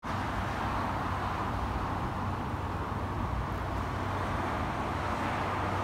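Steady city traffic noise, an even hiss over a low hum.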